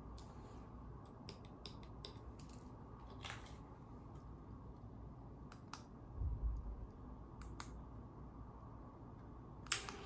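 Faint scattered clicks and light taps of a small plastic key-fob remote control being picked up and handled, its buttons pressed. There is a soft low thump about six seconds in and a sharper click just before the end.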